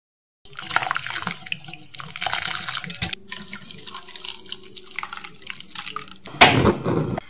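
Milk in a steel saucepan bubbling and crackling as it comes to the boil. After a cut about three seconds in, a thin stream of egg-and-milk mixture trickles through a fine metal mesh sieve into the pan. A short, loud rush of noise comes near the end.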